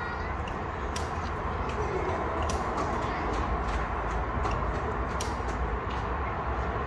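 Kittens crunching dry kibble: scattered sharp crunches over a steady low rumble of street noise.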